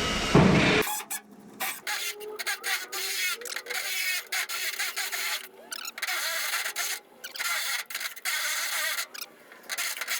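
Electric drill boring a hole, running until it cuts off under a second in. After it come short, irregular scraping and rubbing noises with brief gaps between them.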